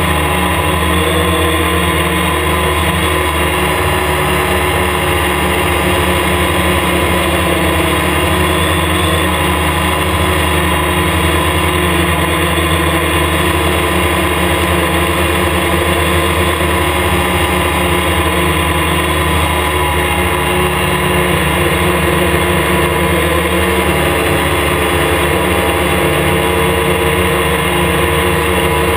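Hexacopter's six electric motors and propellers whirring steadily in flight, heard through a camera fixed rigidly to the aircraft's frame.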